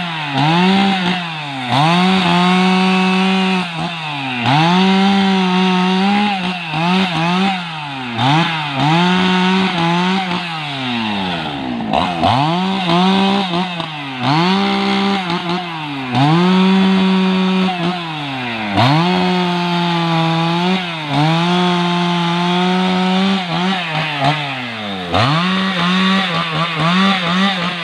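Husqvarna 288XP two-stroke chainsaw cutting rubberwood logs. The engine revs high, then its pitch sags under load as the chain bites into the wood and climbs back again, over and over, about every one to two seconds.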